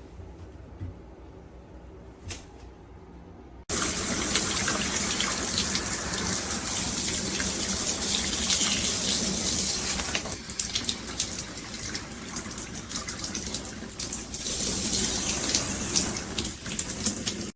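Filtered handheld shower head spraying water, a steady hiss that starts suddenly about four seconds in after a quiet start with a couple of faint clicks, and wavers in level through the rest.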